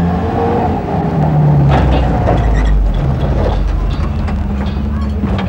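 Police jeep's engine running as it pulls up, a low rumble loudest about two seconds in, with a couple of sharp knocks.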